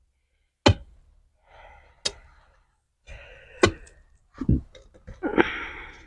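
Bricks being cut to size by striking them with a hand tool: a series of sharp knocks about a second and a half apart, with a duller thud and some scraping between the strikes.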